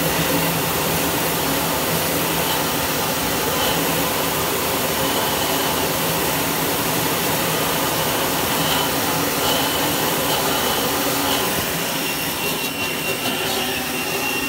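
Harbor Freight pressure washer running, its jet of water blasting into a car's side-exit exhaust tip and splashing off the pipe, a steady loud rushing noise throughout.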